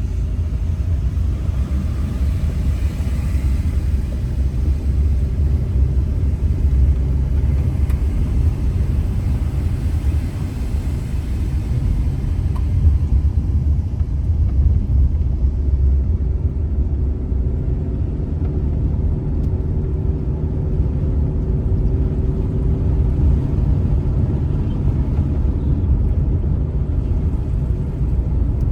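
Car being driven along a road: a steady low rumble of engine and tyres, with a faint steady hum joining in about halfway through.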